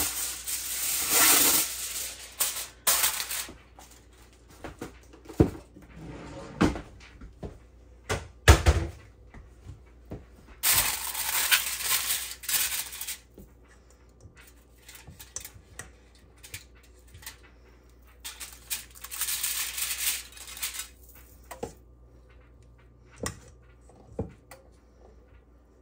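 Kitchen handling sounds: a metal baking pan and utensils knocking and clattering, with one heavier thump about a third of the way in. Three rustling stretches of a couple of seconds each come between the knocks.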